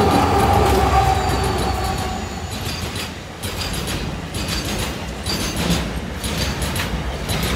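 Twin EMD WDG4 diesel-electric locomotives, each with a 16-cylinder two-stroke EMD 710 engine, passing close by. Their engine drone fades over the first two seconds. Container wagons then roll past, rumbling, with repeated clusters of wheel clicks over the rail joints.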